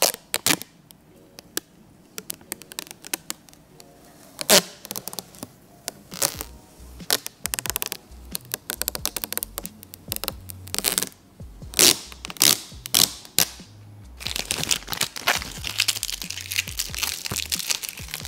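Protective plastic wrapping being peeled off a new electric scooter and crumpled by hand: scattered sharp crackles and tearing, turning into steady dense crinkling for the last few seconds.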